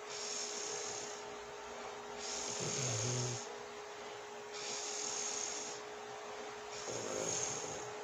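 A woman snoring in her sleep, a breath about every two seconds. Some come as a breathy hiss, others with a low buzzing snore, the strongest about three seconds in and again near the end.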